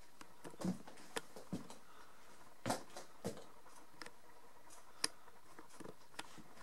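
Camera handling and movement noise: about eight soft knocks and clicks at irregular times, with the sharpest click about five seconds in.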